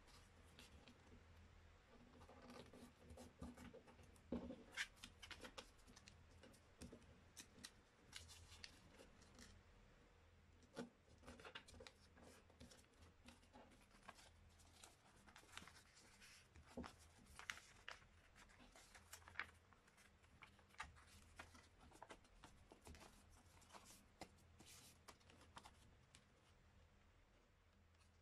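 Faint rustling and crinkling of a sheet of A4 paper being folded and creased by hand, many small crackles and scrapes in quick succession, over a faint low hum.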